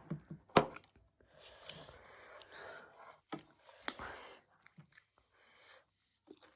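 Close-miked eating sounds: a sharp click about half a second in, then about two seconds of noisy mouth sound, with a shorter one near four seconds, followed by scattered small smacks and clicks.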